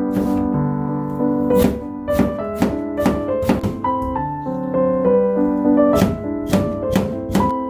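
Kitchen knife chopping vegetables on a plastic cutting board: irregular sharp knocks in quick clusters, over background waltz music with sustained piano-like notes.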